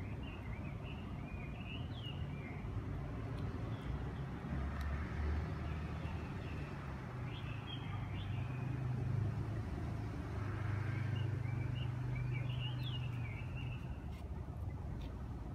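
Steady low hum of a running vehicle engine, swelling a little in the middle, with a few short high chirps now and then.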